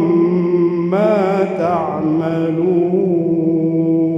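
A man's voice reciting the Quran in melodic tajweed chant. About a second in it moves through a quick ornamented turn, then settles into one long, steady held note through the second half.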